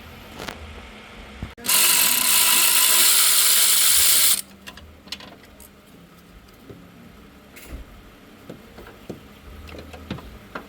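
Compressed-air tool run in one loud burst of about three seconds, a steady hissing whir that starts and stops abruptly, used while working on the spark plug. Quieter tool clicks and knocks follow.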